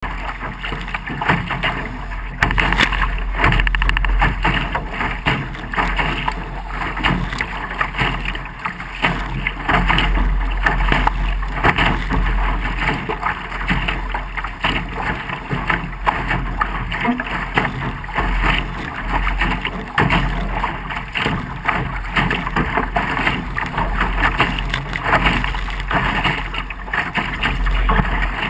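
Laser dinghy hull driving through choppy water at speed: water rushing and splashing irregularly along the bow, with steady wind buffeting the microphone.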